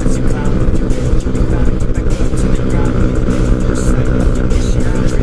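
Engine of a Yamaha Lagenda 110ZR fitted with a 63 mm big-bore kit, running at steady high revs at speed, with wind rushing and buffeting over the camera microphone.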